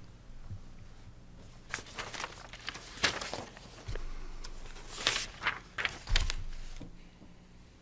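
Sheets of paper rustling and being shuffled in irregular bursts, with a soft thump on the table near the end.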